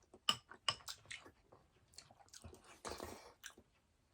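Close-miked mukbang chewing: a person eating with a few short, wet mouth clicks, then a longer stretch of noisy mouth sound about three seconds in.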